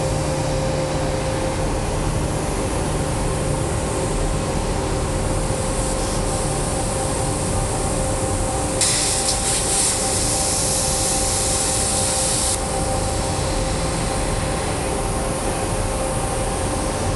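ESAB CNC plasma cutter cutting 1/4-inch mild steel: a steady loud hiss with a constant whine. From about nine seconds in, a sharper, louder hiss runs for about four seconds, then drops back.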